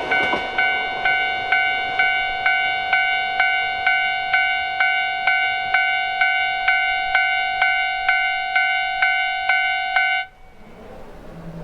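Japanese railway level-crossing alarm sounding its 'kan-kan' warning, an even ringing stroke about twice a second, then cutting off suddenly about ten seconds in. The noise of a passing train fades out at the start.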